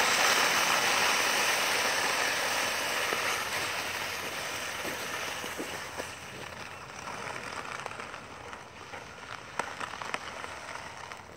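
A plastic sled scraping and hissing as it slides over icy, crusted snow, fading steadily as it moves farther away. A few faint ticks sound near the end.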